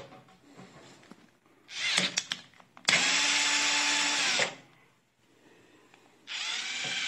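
Cordless power drill/driver unscrewing the retaining screw of an oven thermostat sensor. The motor whirs steadily for about a second and a half, stops, then starts again near the end.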